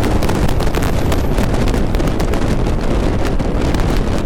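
Heavy wind buffeting on the helmet-camera microphone over a motorcycle's engine and road noise, riding at about 135 km/h.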